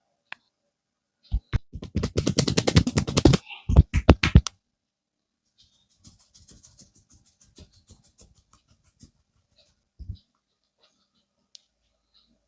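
Rapid hand percussion of a barber's head massage: a fast run of slaps on the head, about a dozen a second, followed a little later by five or six louder separate smacks. Faint quick ticking and a couple of soft thumps follow.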